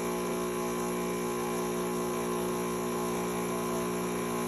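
Miele CM5300 coffee machine's pump running with a steady, even hum, pumping the leftover water out into the drip tray during the drain program.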